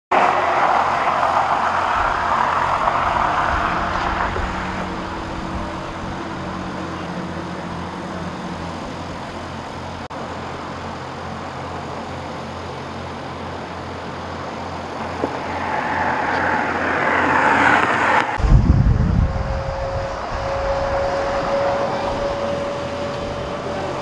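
Freeway traffic passing over the steady hum of idling engines. A vehicle rushes by near the start and another at about fifteen to eighteen seconds. About eighteen seconds in the sound shifts abruptly to a deeper rumble.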